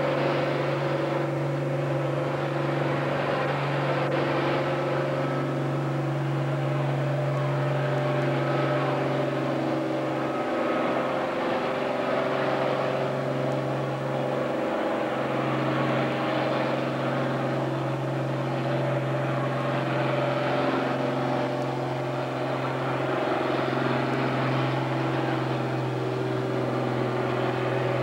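International Harvester diesel farm tractor engine running hard and steady under load in a stock tractor pull, with two brief dips partway through.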